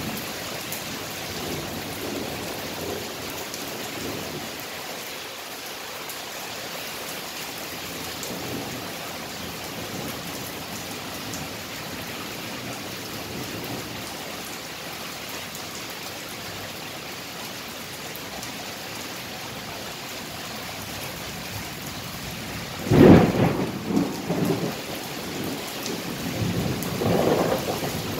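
Steady rain falling during a thunderstorm. Near the end a sudden loud thunderclap rolls on for a few seconds, followed by another rumble of thunder.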